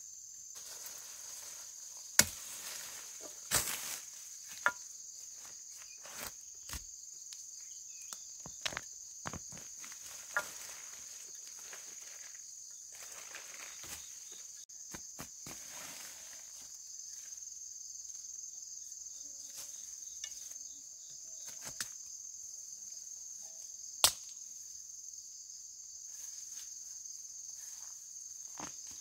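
Steady high-pitched insect chirring, with scattered sharp knocks and clicks, the loudest a couple of seconds in and again about four-fifths of the way through.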